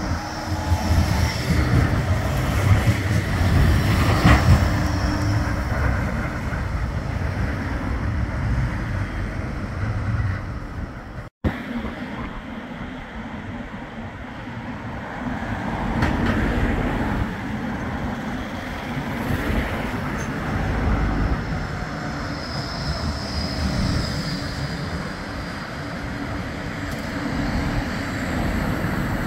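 A Bombardier Flexity 2 light-rail tram runs past on street track, a low rumble of wheels on rail with a faint high whine. After a brief break about eleven seconds in, a tram is heard again, coming closer and passing near the end.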